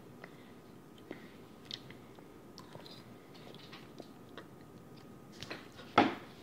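A person eating ramen noodles with a fork: soft chewing and eating noises with faint scattered clicks, and one short loud thump about six seconds in.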